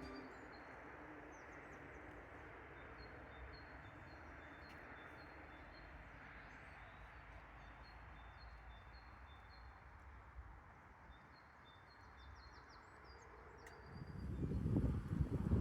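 Woodland ambience: a soft steady hiss of air, with a small bird chirping again and again in short high notes. Near the end, wind gusts buffet the microphone in a loud low rumble.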